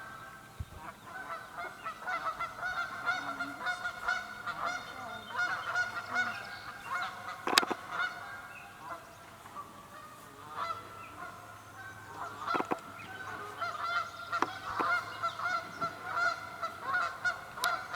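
A flock of Canada geese honking over and over in an agitated chorus, many calls overlapping, typical of geese alarmed while fending off an attacking mute swan. A few sharp cracks stand out among the calls, the loudest about halfway through.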